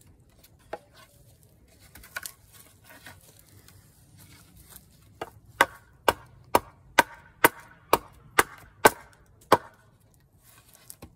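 Gränsfors Bruk small carving hatchet chopping into wood: a few light taps, then a run of about nine sharp chops about two a second that stops a second or so before the end.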